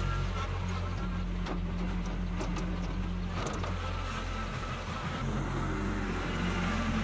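Kubota B2261 compact tractor's three-cylinder diesel engine running steadily as the tractor drives, with a few short knocks around the middle.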